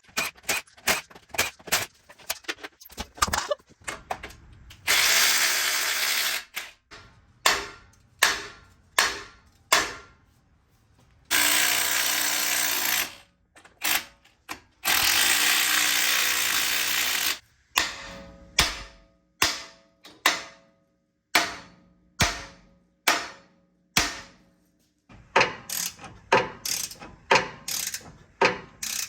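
Mechanic's tools working on metal steering parts: a long run of sharp ratchet-like clicks and knocks, some ringing briefly. Three times a power tool runs steadily for about two seconds.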